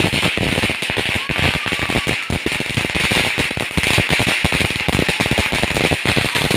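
Fireworks crackling: a fast, irregular run of small pops over a steady hiss.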